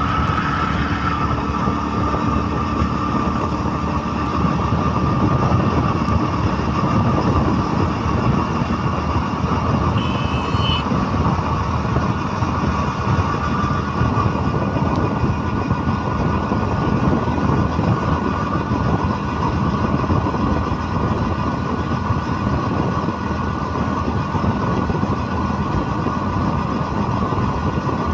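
Vehicle engine running steadily under way, a dense low rumble that holds an even level throughout.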